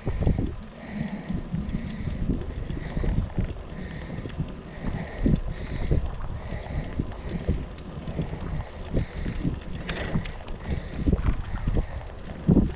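Wind buffeting the microphone of a camera on a moving bicycle, over a steady low rumble from the tyres rolling on rough tarmac. Two sharp knocks come near the end.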